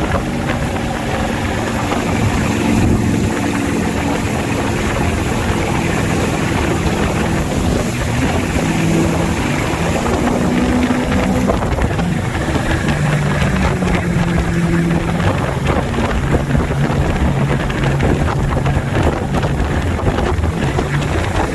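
Ski boat's inboard engine running under way, its pitch shifting a little as the throttle changes, with wind buffeting the microphone and the rush of water.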